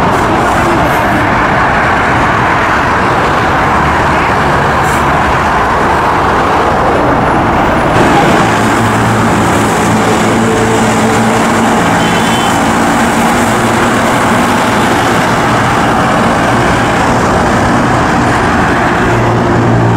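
Rubber-tyred Santiago Metro train running along an open-air track: a loud, steady rush of running noise. About eight seconds in, a low hum of several steady tones joins it.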